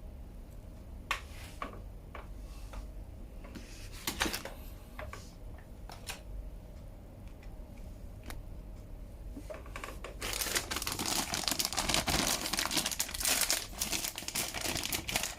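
Plastic packaging crinkling as it is handled. There are a few scattered clicks and rustles at first, then dense, continuous crinkling from about ten seconds in.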